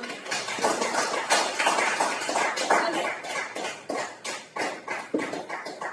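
An audience applauding, many hands clapping in a dense patter that thins out and fades near the end.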